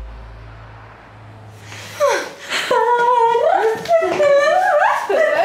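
A short music sting fades out, then about two seconds in girls' voices start humming and singing a wordless tune, sliding up and down in pitch.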